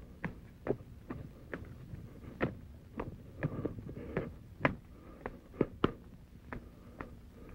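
Footsteps on dirt and loose stones, a dozen or so irregular sharp steps, over a faint low hum.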